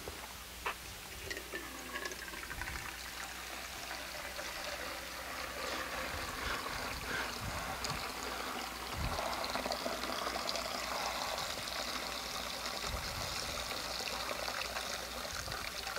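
Water pouring in a steady stream from a glass pitcher into a glass baptismal bowl, filling the font for a baptism.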